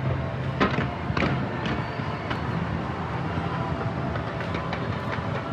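Fireworks going off over a dense, continuous din, with several sharp bangs, the loudest about half a second and a second in, and more near the middle and end.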